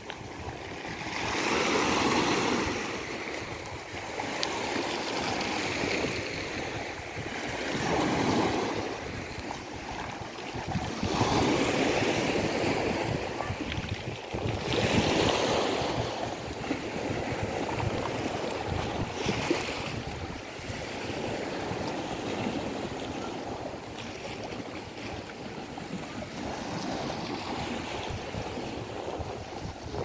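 Small sea waves washing and breaking against a concrete groyne and the shore, swelling and falling away every few seconds.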